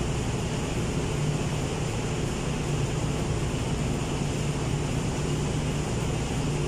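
Steady machinery drone of a ship's engine room: a constant low hum under an even hiss, unchanging throughout.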